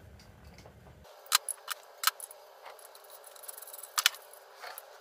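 Sharp clicks and light taps of small parts being handled while a manifold absolute pressure (MAP) sensor is fitted into the rear port of an intake manifold. There are about half a dozen separate clicks, the loudest a little over a second in and about four seconds in.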